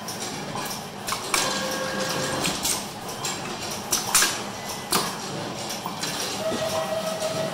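Benchtop bridge-wire coiling machine at work: irregular metallic clicks and clinks as small metal parts are handled and fed to it. A steady whine from the machine sets in about six seconds in.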